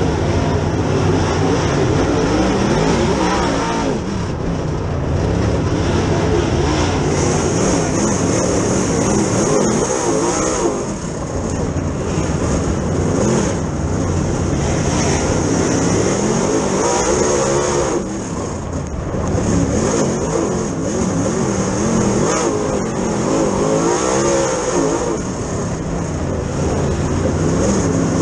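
Dirt Super Late Model race car's V8 engine at racing speed, heard from inside the cockpit, its pitch rising and falling lap after lap as the throttle is lifted into the turns and opened again down the straights. Twice the note drops briefly as the driver lifts off.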